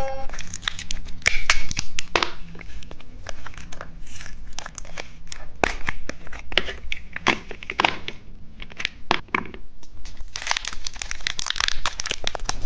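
Plastic candy packaging crinkling and tearing in a fast, irregular run of crackles and rustles, busiest near the end, as a novelty toilet-shaped candy is unwrapped.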